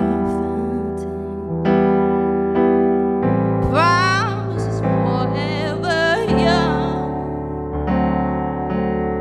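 A woman sings while accompanying herself on a Yamaha MX88 stage keyboard with a piano sound. Held chords change every second or two. Her voice comes in about three and a half seconds in with sliding, wavering notes, then falls away, leaving the chords.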